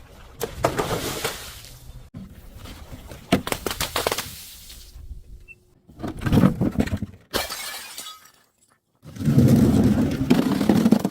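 Glass being crushed and shattering: crackling, crunching breakage in several short stretches, each starting and stopping abruptly. The loudest and densest crunching comes in the last two seconds.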